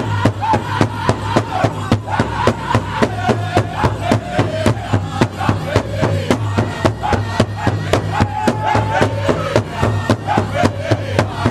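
A powwow drum group striking a large hide-covered powwow drum together in a fast, steady beat while the men sing a chicken dance song over it, their voices rising and falling.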